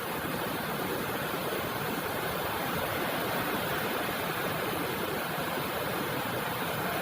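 Steady rain falling, a continuous, even hiss with no breaks.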